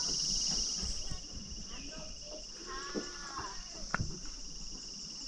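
Steady high-pitched chorus of insects, with a fast pulsing trill running beneath it. A short call sounds about three seconds in, and a sharp click about a second later.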